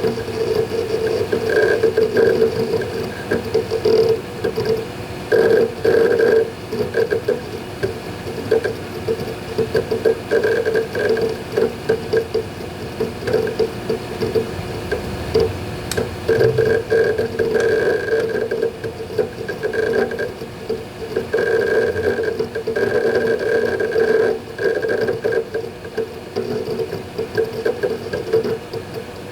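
Western Digital Ultrastar hard drives in a Synology DS220+ NAS working through a Hyper Backup job. An irregular, rapid chatter of head seeks comes and goes over a steady hum.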